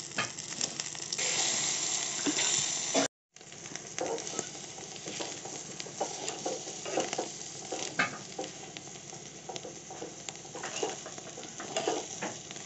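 Egg omelette sizzling in hot oil in a small iron tadka pan, with a steel spoon scraping and tapping against the pan. The sound drops out for a moment about three seconds in.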